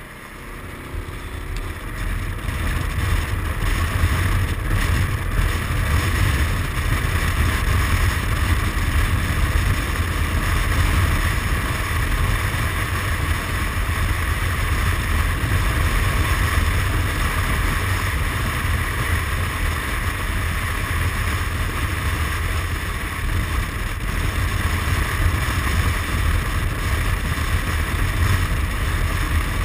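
A 2007 Suzuki Burgman 400 maxi-scooter on the move: wind noise on the handlebar microphone over the engine and tyre noise. It swells over the first two or three seconds as the scooter gathers speed, then holds steady.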